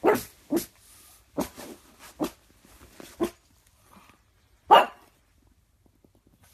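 A pug barking: a quick run of short, sharp barks over the first three seconds or so, then one more loud bark about five seconds in.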